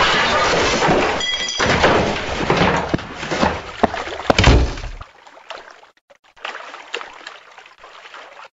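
Loud, noisy cartoon sound effects with several thuds and a brief squeak, dropping suddenly to a faint rustle about five seconds in.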